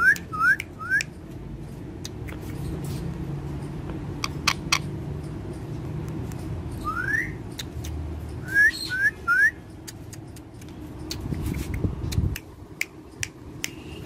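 Rose-ringed parakeets calling: short, shrill upswept calls in quick runs of three near the start and again about nine seconds in, with a single one about seven seconds in, over a steady low background rumble.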